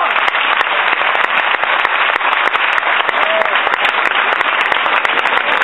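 Crowd applauding: many hands clapping in a loud, dense patter, with a brief shout about three seconds in.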